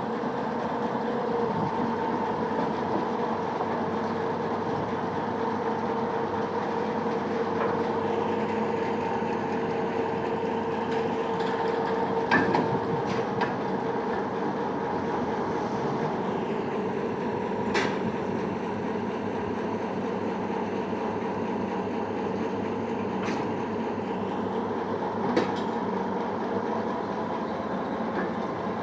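Railway turntable turning with two small diesel shunting locomotives on it: a steady mechanical hum and rumble, with a few sharp clicks and knocks now and then.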